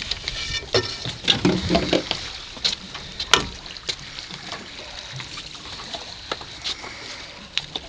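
Water lapping and sloshing against a small fishing boat's hull, with scattered sharp clicks and knocks, the loudest about three seconds in.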